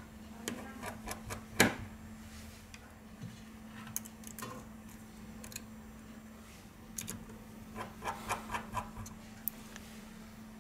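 Small clicks and taps of a precision screwdriver and metal tweezers on the screws, bracket and aluminium housing of an iPhone 6: one sharp click about a second and a half in, then a run of light taps near the end, over a steady low hum.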